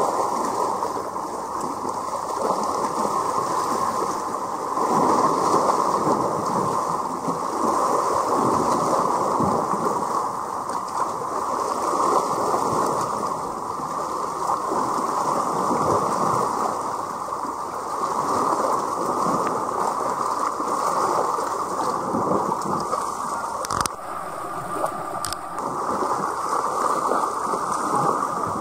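Seawater sloshing and gurgling close to the microphone: a continuous muffled wash that swells and eases every few seconds, with a single brief knock late on.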